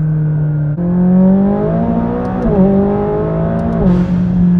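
The 2016 McLaren 570S's twin-turbo V8 accelerating, its note climbing and then dropping sharply twice as the gearbox shifts up, then holding steady near the end.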